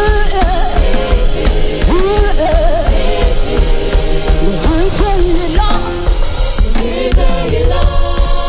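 Gospel worship music: a singing voice slides and wavers in pitch over a full band with drum kit and heavy bass.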